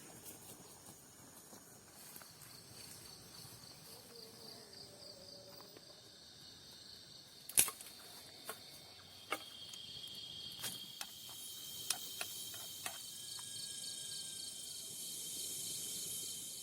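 Night insects, crickets and similar, keep up a steady, finely pulsing high chorus that grows louder toward the end. A handful of sharp clicks or snaps cut through it, the loudest about halfway.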